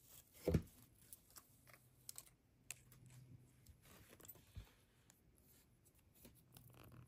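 Faint, scattered small clicks and light handling noises of beads and cord being worked by hand as the cord is pulled through a loop for a knot, with one soft thump about half a second in.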